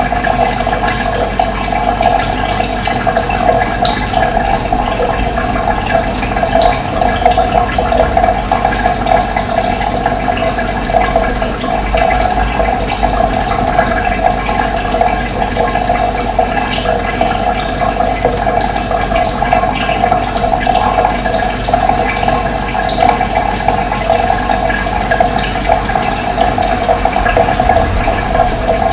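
Steady rush of running water with no change in level, and short bird chirps dotted over it now and then.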